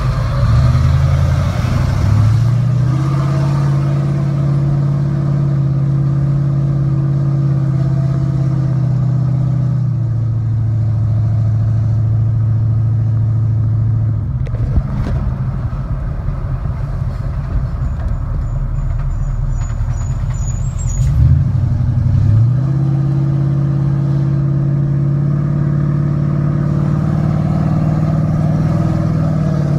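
Swapped 6.0-litre LQ9 V8 of a GMC Sierra pickup, heard from inside the cab while driving: a steady low engine drone that steps up in pitch about two seconds in, turns rougher and quieter from about fourteen seconds, then rises sharply in pitch just after twenty-one seconds and settles back into a steady drone.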